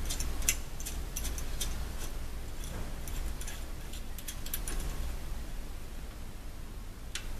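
Light, scattered clicks and ticks of small metal parts being handled: a button-head screw and a steel adapter plate being fitted to a motorcycle luggage rack.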